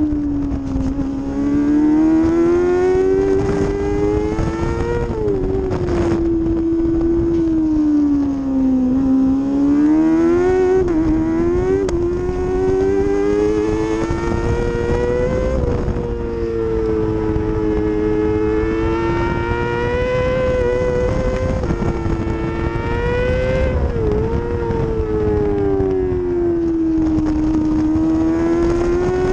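Kawasaki ZX-6R Supersport racing motorcycle's inline-four engine heard from on board at speed, its pitch rising under acceleration and falling as the bike slows for corners, with a few short kinks in the note.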